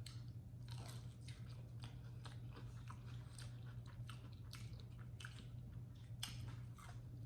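Close-miked chewing and biting of fried chicken, with many short, sharp crunches, over a steady low hum.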